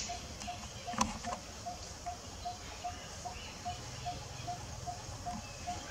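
Outdoor ambience in which a short note repeats evenly about two and a half times a second, with a couple of sharp clicks about a second in.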